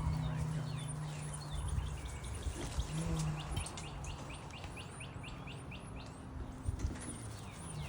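Small birds chirping fast, a continuous run of short, high, down-sliding chirps several a second. A low steady hum sounds underneath for the first couple of seconds and again through the middle.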